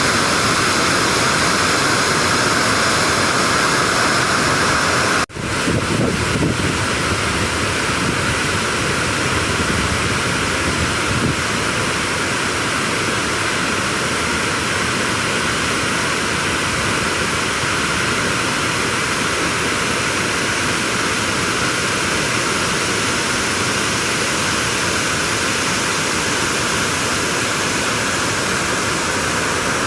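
A waterfall's cascades rushing as a loud, steady roar of water, broken by a brief gap about five seconds in.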